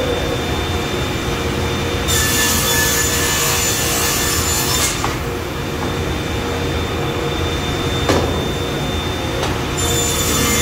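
Sliding table panel saw running with a steady whine, its blade cutting plywood twice: a loud hiss from about two seconds in for some three seconds, and again near the end. A single knock comes about eight seconds in.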